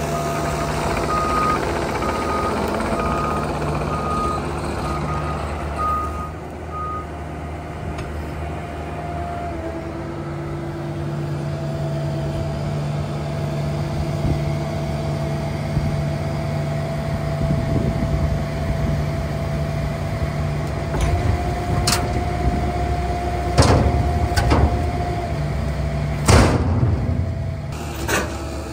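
Cat mini excavator's diesel engine running with a steady hydraulic whine that shifts pitch as the arm works, while a warning beeper sounds about once a second for the first several seconds. In the second half, juniper logs land in a steel dump trailer with several heavy knocks, the loudest about two-thirds of the way through.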